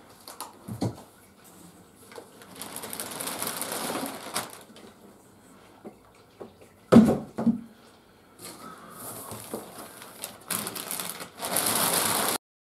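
Plastic packing bag rustling and crinkling as it is pulled back from around a boxed printer, in two long stretches, with a few light knocks early on and a loud thump about seven seconds in. The sound cuts off suddenly just before the end.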